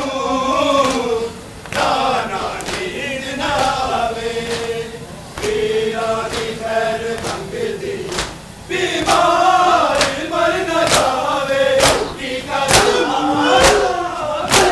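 A crowd of men chanting a noha together, with sharp rhythmic slaps of matam, hands striking bare chests in time with the chant. The slaps come more often in the second half.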